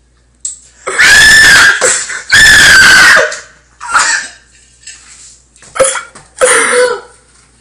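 A person's loud, high-pitched vocal cries: two long shrieks about a second in and two seconds in, followed by several shorter yelps.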